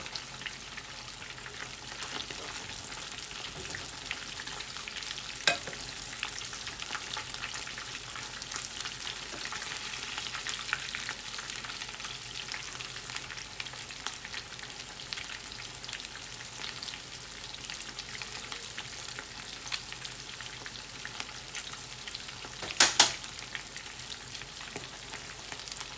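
Chicken pieces deep-frying in hot oil, with a steady sizzle and fine crackling. A single sharp knock about five seconds in and a quick double knock near the end.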